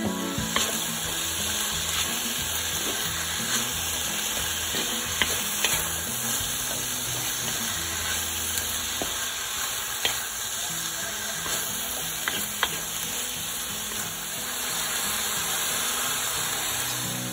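Meat, vegetables and bean sprouts sizzling steadily in a hot wok as they are stir-fried, with scattered sharp clicks and scrapes of the spatula against the pan.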